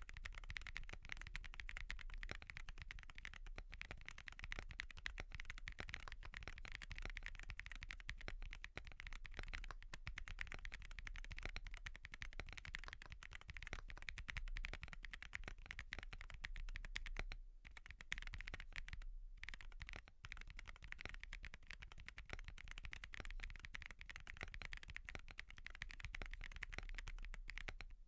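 Continuous typing on a Wobkey Crush80 mechanical keyboard with Haimu Midnight switches and no IXPE switch pad: a dense stream of keystroke clacks, with two brief pauses a little past the middle.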